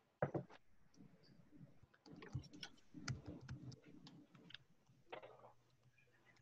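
Faint, irregular clicking of typing on a computer keyboard, heard through a video-call microphone.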